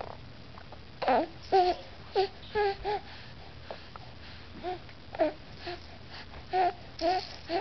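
Three-month-old baby making a string of short, high-pitched vocal sounds, about a dozen brief coos and squeals with a pause in the middle.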